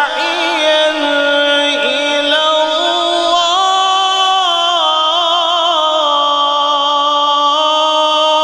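A male qari reciting the Quran in melodic tajweed style, drawing out one long unbroken phrase of held notes that step between pitches with wavering ornaments.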